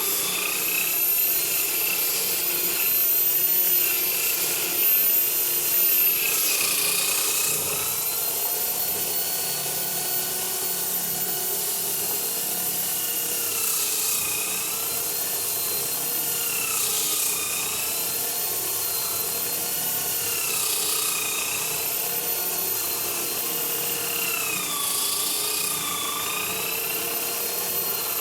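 Electric drill converted into a sander running with coarse sandpaper against wood: a steady motor whine over the hiss of abrasive rubbing. The whine sags in pitch for moments about five times as the tool is pressed harder and the motor slows under load.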